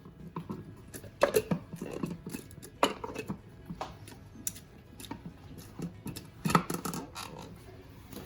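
Irregular light knocks and clicks of kitchen utensils and containers being handled, the sharpest about a second in, near three seconds and about six and a half seconds in.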